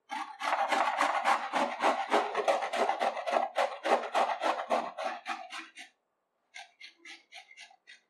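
Peeled bottle gourd rasped back and forth on a flat stainless-steel grater against a wooden board: quick grating strokes, about five a second, that stop about six seconds in and give way to fainter, shorter strokes.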